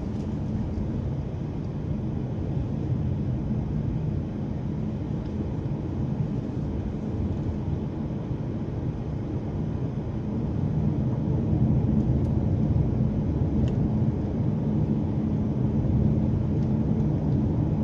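Steady low rumble of a car's engine and tyres on the road, heard from inside the moving car. It grows a little louder about two-thirds of the way through.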